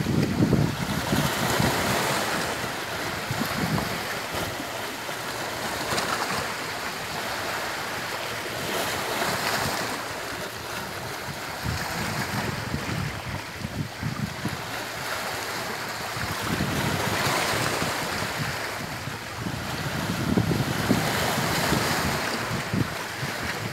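Sea waves breaking and washing on the shore, the surf rising and falling every few seconds, with wind buffeting the microphone in low gusts.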